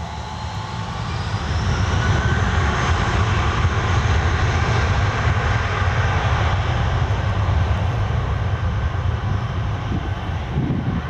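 Airbus A319's twin jet engines spooling up to takeoff thrust: a whine rises in pitch over a low rumble, the sound grows louder about a second and a half in, then holds steady and loud.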